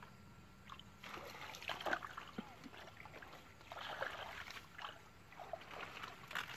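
Bare feet wading in shallow, muddy pond water: irregular splashing and sloshing in short bursts.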